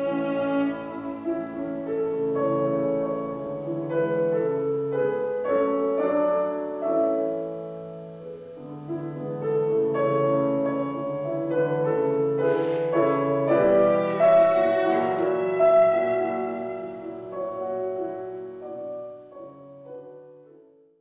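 Violin and piano duo playing classical music, the piano carrying sustained chords under the melody; the music dies away near the end.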